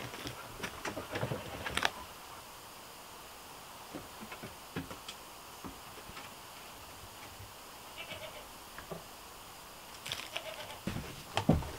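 A few light knocks and clatter near the start, then a quiet steady background with a faint animal cry a little past the middle, and more knocking starting near the end.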